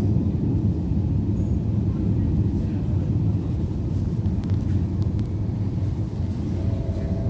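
Helsinki Metro train heard from inside the carriage as it slows along the platform: a steady low rumble of wheels and running gear, easing slightly, with a steady higher hum joining near the end.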